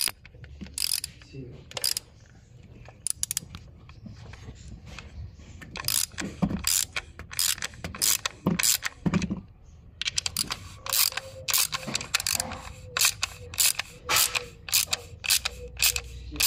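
Mechanical clicking: sharp, irregular clicks, sparse at first and coming several a second in the second half, over a faint steady hum.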